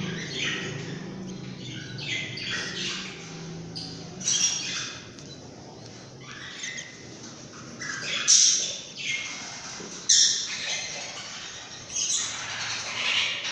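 Lovebird chicks squawking: a string of harsh, raspy calls in uneven bursts, the loudest about four, eight and ten seconds in, with a busier run of calls near the end.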